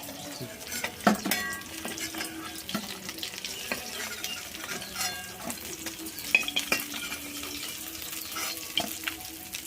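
Pieces of bata fish sizzling in hot oil in a frying pan, with frequent short clicks and scrapes of a spatula against the pan as the fried fish is turned and lifted out.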